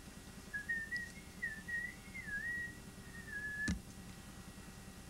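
A person whistling a short, wandering tune, a single pure note sliding up and down. A sharp tap comes just as the whistling stops, about three and a half seconds in.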